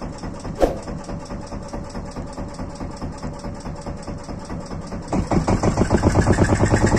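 Boat engine running at idle with a rapid, even putter, growing much louder from about five seconds in as it is throttled up. A single sharp knock sounds under a second in.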